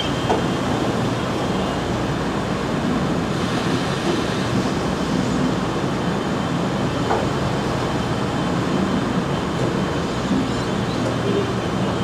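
Steady running noise of a fruit-packing line's bin-handling machinery: roller conveyors and a wet bin dumper working, with a few light knocks.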